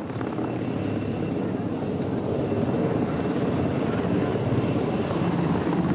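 Military helicopter hovering close by, its rotor and engine making a steady, loud beating noise.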